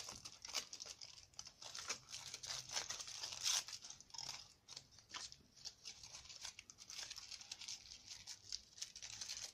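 Aluminium foil crinkling and crackling as it is scrunched, wrapped and pressed tight by hand around a small wire armature, a steady run of crackles throughout.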